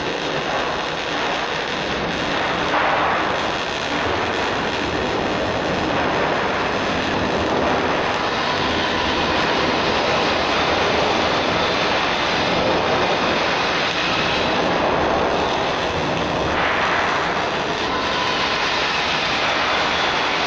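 Loud, steady hiss of sheet-metal fabrication work with no clear pitch, swelling briefly about three seconds in and again near the end.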